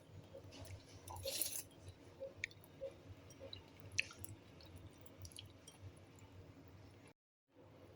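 Quiet eating sounds: soft chewing with scattered small clicks and smacks, cutting out briefly near the end.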